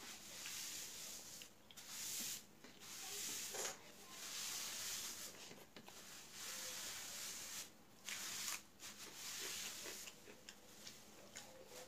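Fingers mixing rice and chicken curry on a metal plate: repeated soft rubbing, swishing strokes, each about a second long, with short pauses between.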